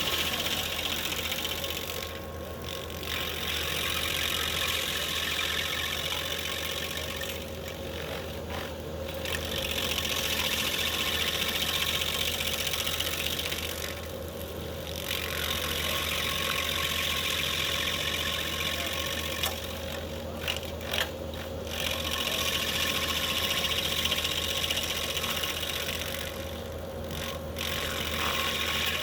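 High-flow skid steer running at steady speed, driving a hydraulic stump grinder's cutting wheel. A harsh hissing layer over the engine breaks off briefly about every six seconds.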